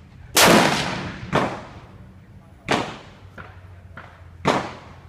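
Four rifle shots: the first, about a third of a second in, is the loudest with a long ringing tail, followed by quieter shots about a second in, two and a half seconds in and four and a half seconds in.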